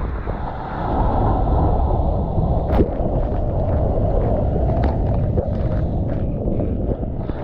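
Steady rush of a breaking wave heard from inside the barrel through a GoPro riding at water level, with most of its weight low down. It grows louder about a second in, and a few sharp clicks of spray hit close by, the strongest about three seconds in.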